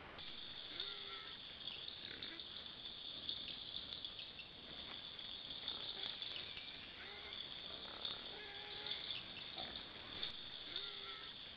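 Crickets and other forest insects trilling in a steady, high chorus, with short low animal calls every second or two.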